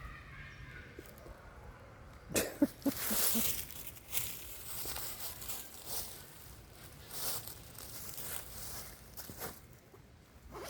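Irregular rustling and crackling of leaves and undergrowth, in a string of short bursts, loudest a couple of seconds in.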